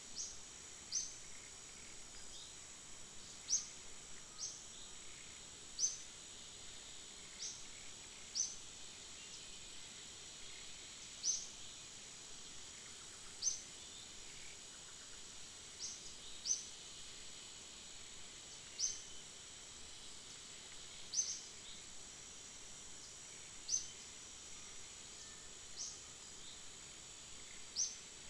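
Forest insects keep up a steady high drone, and short high chirps stand out above it every one to two seconds or so, louder than anything else.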